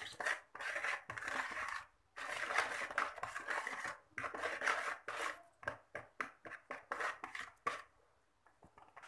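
A metal spoon scrapes around a plastic mixing bowl while stirring milk with yeast and sugar to dissolve the yeast. The first stretch is long scraping sweeps. About five seconds in it changes to quick short strokes, roughly four a second, which stop about eight seconds in.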